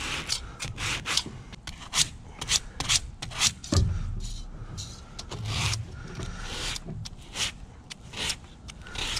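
Sandpaper on a sanding block rasping back and forth in quick strokes over a thin piece of painted aluminium can, scraping the paint off to bare silvery metal. There is one louder knock about four seconds in.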